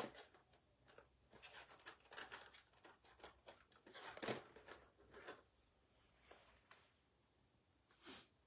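Faint scattered rustles and light taps of objects being handled on a table.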